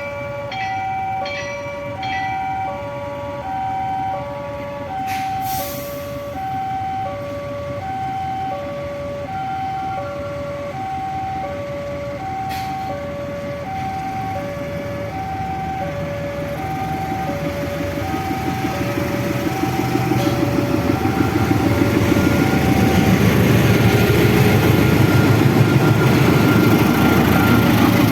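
Railway level-crossing warning alarm sounding a slow hi-lo two-tone pattern, switching tone every half second or so. From about 17 seconds in, a train's rumble builds and swells into a loud pass-by that buries the alarm near the end.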